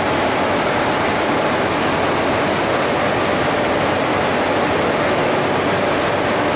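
Locomotive at the head of a passenger train, running with a steady, even rushing hum and a couple of faint constant tones, with no change in level.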